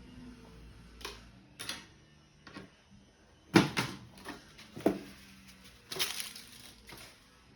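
Kitchen utensils and containers being handled on a counter: a run of sharp clicks and knocks, the loudest about three and a half seconds in, and a short rustling scrape about six seconds in.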